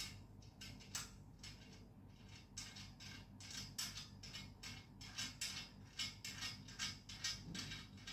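Hands working along a white rack's square bar: a quick, irregular run of short scratchy rubbing sounds, several a second, with a sharp click at the very start and another about a second in.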